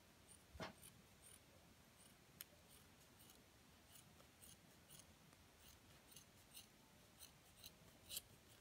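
Scissors snipping through folded velvet fabric: a string of short, faint snips as the blades cut across the layers.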